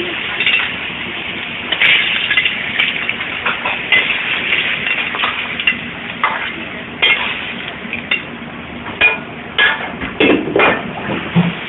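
Clams stir-frying in a wok with XO sauce: a steady sizzle, with irregular clanks and scrapes of a metal utensil against the wok, more frequent toward the end.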